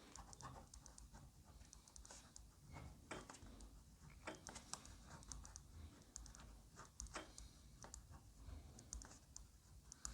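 Faint, irregular clicking and tapping, many small clicks in no steady rhythm, over near-silent room tone.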